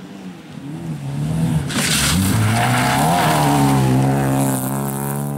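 Rally car's engine at high revs as it comes through a bend on a gravel stage and passes close by. The pitch falls and rises with lifts and gear changes as it nears, with a short rush of tyre and gravel noise about two seconds in, then holds a steady high note as it goes past.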